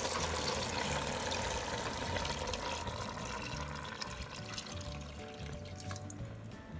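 Water poured from a tin can into an Instant Pot's inner pot, splashing onto pasta and sauce. The stream thins out toward the end. Background music plays underneath.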